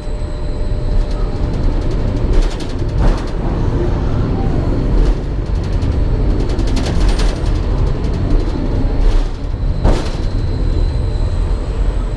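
Steady heavy rumble of a moving train, with repeated sharp rattles and clatters, produced by the ghost-train dark ride's sound and motion effects inside its carriage.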